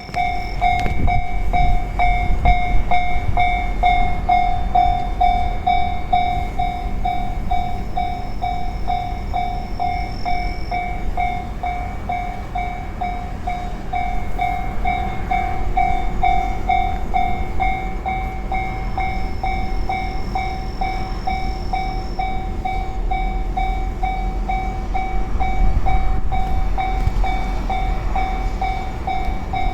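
Japanese railway level-crossing warning bell ringing over and over at an even pace, with a train rumbling past the crossing.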